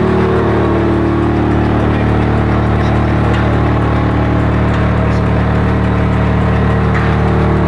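A machine's engine or motor running steadily, a low even hum that holds one pitch, with a few faint metallic clinks.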